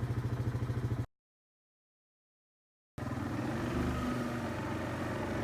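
Four-wheeler (ATV) engine running with a fast, even pulse during a ride. About a second in the sound cuts to dead silence for about two seconds, then the engine sound comes back, less even.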